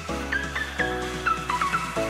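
Background music: an electronic track with held bass notes and short high notes that slide in pitch.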